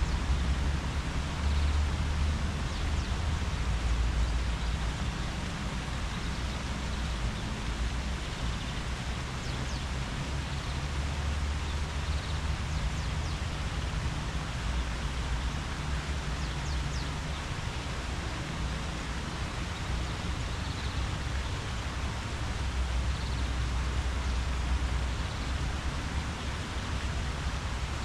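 Leaves rustling in the wind, an even rushing hiss over a low, fluctuating rumble, with a few faint chirps scattered through.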